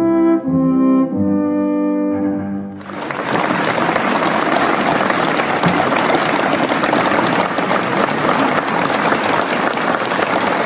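An orchestra holds its final chords, which fade out about two and a half seconds in. Then audience applause breaks out and keeps going steadily.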